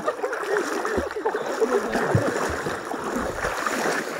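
River water splashing and running, with voices faintly in the background.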